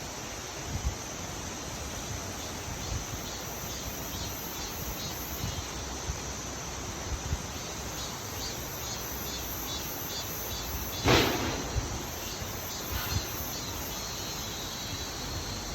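Insects chirping in rapid, regular pulses over a steady outdoor background noise, with one sharp knock about eleven seconds in.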